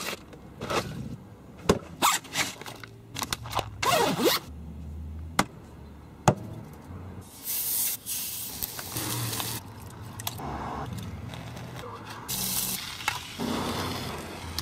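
Food packaging crinkling and items knocking and scraping while someone rummages in a plastic cooler. Then come two stretches of hissing from food cooking in a pan on a small canister camp stove: one about eight seconds in, the other near the end.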